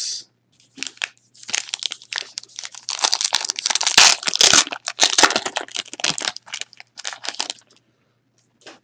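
Foil wrapper of a 2015-16 Donruss basketball card pack crinkling and tearing as it is opened by hand, in irregular crackles that are loudest about halfway through and die away near the end.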